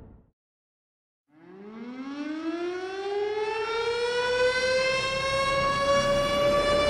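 A siren winding up after about a second of silence, its pitch rising steeply and then levelling off into a steady wail.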